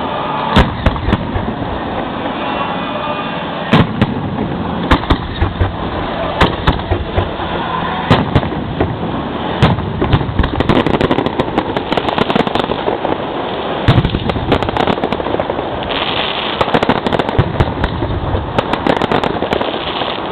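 Fireworks display heard from the launch site: shells going off in loud, sharp bangs every second or so. Dense runs of crackling come about halfway through and again near the end.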